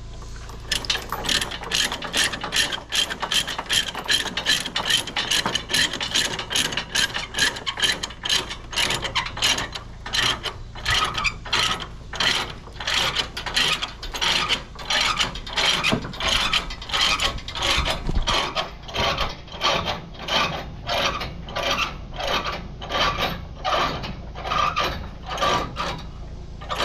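A hand ratchet being worked steadily, giving a long, even run of sharp clicks about two a second, as if being cranked under load.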